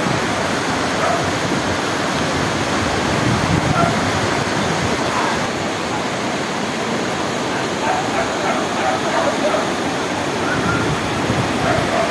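Flash-flood torrent of muddy water rushing through a street, a steady roar of water. Short faint calls come through over it now and then, mostly near the end.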